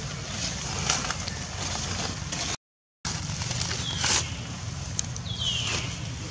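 Steady outdoor background noise with a low hum and a few soft clicks and rustles. It cuts out for about half a second near the middle, then two brief high squeaks slide down in pitch, the second one longer.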